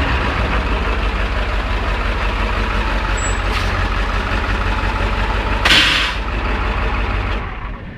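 International T444E 7.3-litre V8 turbo diesel idling steadily after starting right up, its cold-start trouble cured by a new glow plug controller. A short loud hiss comes about six seconds in, and the engine sound stops near the end.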